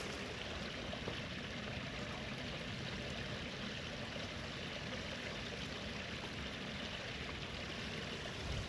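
Running water of a stream, a steady rush.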